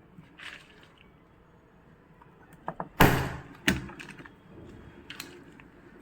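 Sharp clicks and knocks from paintless dent repair tools on a car body panel: two loud strikes about three seconds in and a moment later, with lighter clicks before and after.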